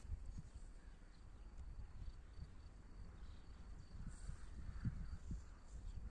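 Faint open-field ambience: a low, uneven wind rumble on the microphone and a thin, steady high-pitched chirring of insects.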